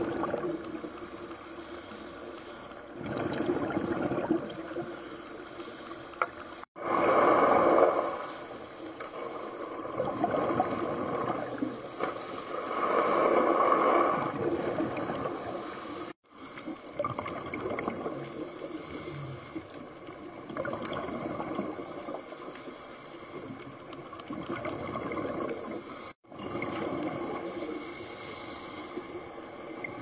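Scuba diver's breathing heard underwater: bubbly rushes of exhaled air from the regulator every few seconds. The sound drops out abruptly three times, at cuts in the footage.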